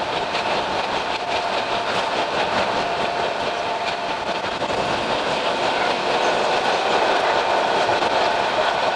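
Sangi Railway Hokusei Line narrow-gauge electric train running along the track: a steady wheel-on-rail hiss with a thin motor whine, and rapid clicking over the rails in the first few seconds.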